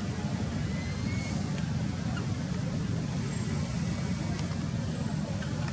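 Steady low rumble of motor traffic, with a faint high chirp about a second in.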